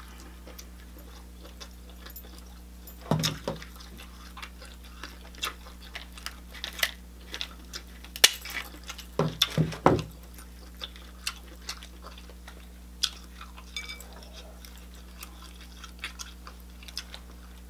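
Shellfish shell being pulled apart by hand and cut with kitchen shears: scattered snips, cracks and crunches with wet handling. The loudest cracks come about three seconds in and again around nine to ten seconds in, over a steady low hum.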